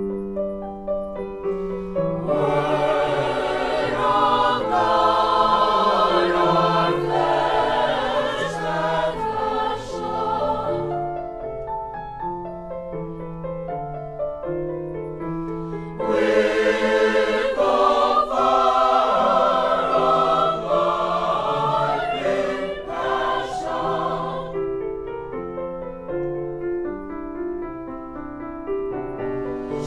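A choir singing, swelling into fuller, louder passages about two seconds in and again about halfway through, with softer stretches between.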